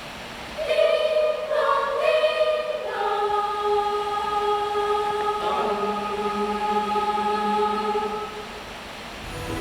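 A choir singing long held notes in chords, with a few shorter changing notes in the first three seconds, then one sustained chord that fades away near the end.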